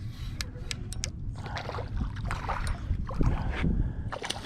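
Steady low wind rumble and water splashing around a small fishing boat, with a few sharp clicks about half a second to a second in.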